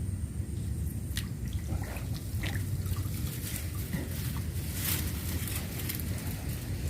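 Light water sounds, small drips and splashes at irregular moments, over a steady low rumble.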